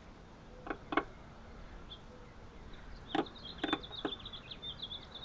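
A few light clicks and taps, and from about three seconds in a small bird chirping rapidly in a quick high twitter.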